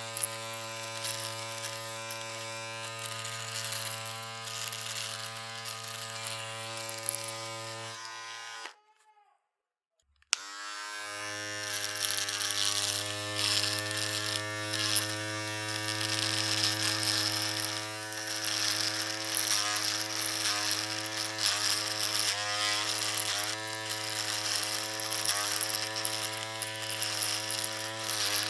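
Electric shaver buzzing steadily, switched off about eight seconds in and winding down to silence, then switched back on with a click a second or two later and buzzing again. In the second half its pitch dips slightly now and then.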